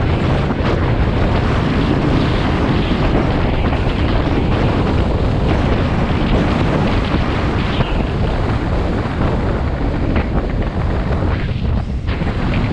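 Heavy wind buffeting the microphone of a camera mounted on a moving Honda CRF250 Rally. Underneath it is the bike's single-cylinder four-stroke engine under way. The rush is steady, with a brief lull near the end.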